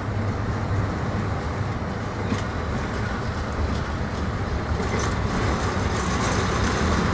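Passenger train moving slowly toward the listener during shunting: a steady low rumble with the rolling noise of wheels on rail. Clicks and rattles from the wheels and rails grow louder in the last couple of seconds as the coach approaches.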